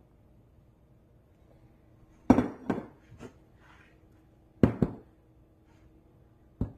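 Sharp knocks of kitchen bowls on a hard countertop as a glass mixing bowl full of flour is handled: two quick pairs of knocks, then a single one near the end.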